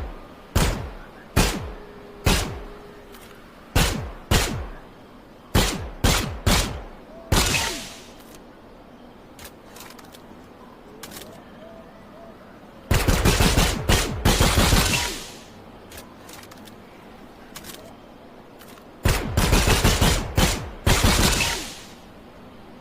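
Pistol gunshots: about nine single shots, fired irregularly and each with a short ringing tail, over the first eight seconds. Then come two long bursts of rapid fire, each lasting about two and a half seconds, several seconds apart.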